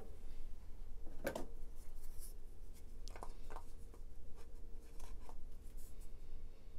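Light handling of a washing machine's agitator coupling and bolt: a few scattered small clicks and knocks with soft rubbing, over a faint steady hum.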